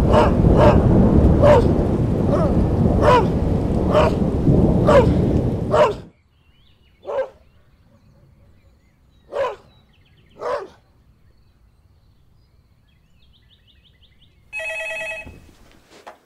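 A dog barks repeatedly, about once a second, over a loud low rumbling noise. The noise cuts off suddenly about six seconds in, and three fainter barks follow, spaced a second or two apart. Near the end a landline telephone rings once, briefly.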